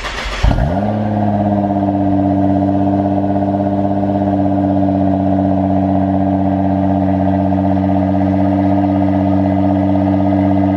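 Nissan GT-R R35's twin-turbo V6 firing up cold through an Armytrix straight-pipe exhaust: it catches with a flare about half a second in, falls back and settles into a steady idle, left unrevved because the engine is still cold.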